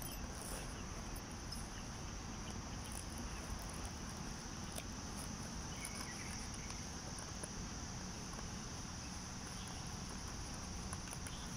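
Insects, such as crickets, chirring steadily as a constant high-pitched trill, with a few faint ticks.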